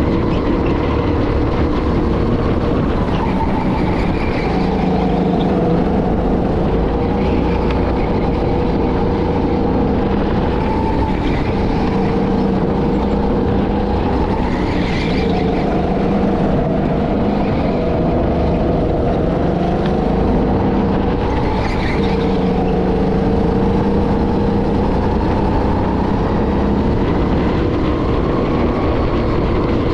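Go-kart engine running hard, heard from onboard. Its pitch drops and climbs again every few seconds as the kart slows and speeds up around the lap.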